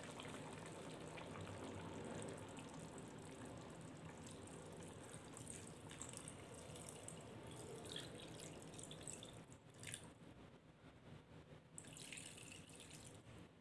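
Faint trickle of water poured from a stainless steel bowl into a wok of curry.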